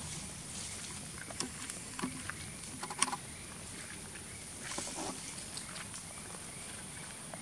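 Dry leaf litter crackling and rustling in scattered small snaps as long-tailed macaques move over the forest floor, with one sharper snap about three seconds in. Underneath runs a steady low rumble and a thin high hiss.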